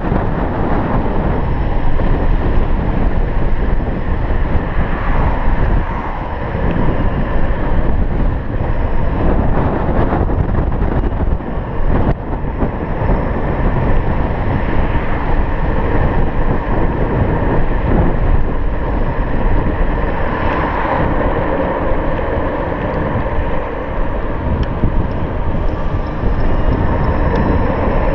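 Steady wind rush buffeting the microphone, with tyre and road noise, as an electric scooter rides along a street.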